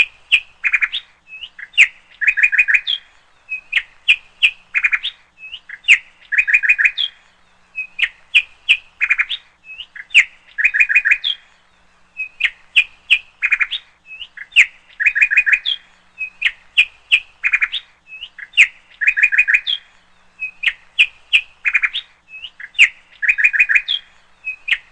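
Bird-like chirping: groups of quick high chirps that repeat in the same pattern about every two seconds, like a looped sound track.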